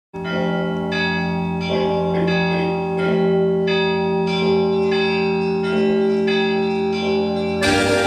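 Church bells ringing a peal, a fresh stroke about every two-thirds of a second over long, overlapping ringing tones. Shortly before the end, instrumental backing music with an organ-like sound comes in.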